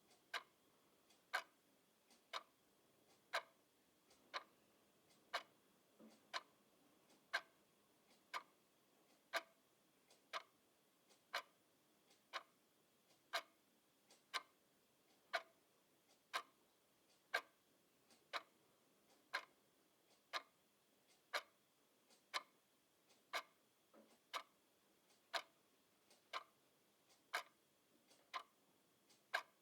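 Mechanical clock ticking steadily at about one tick a second, each tick a sharp, crisp click.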